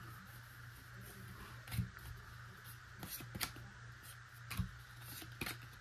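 Football trading cards slid and flicked through in the hands, giving a few short soft clicks and snaps, the clearest about two seconds in and near the end, over a faint steady room hum.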